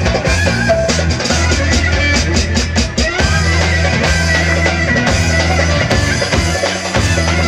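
Loud Roman havası dance music with drums, heavy bass and a high lead melody.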